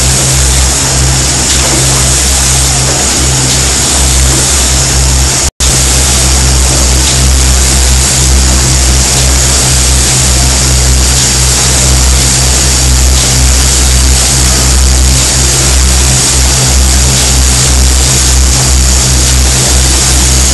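Steady loud machine noise of an automated assembly line for rapid diagnostic test devices running: a deep buzzing hum under an even hiss. It drops out for an instant about five and a half seconds in, then carries on unchanged.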